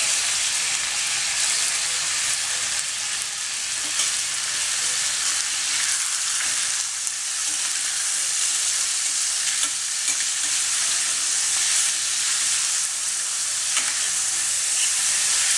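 Chicken pieces frying in hot coconut oil, a steady sizzle, with a few faint clicks.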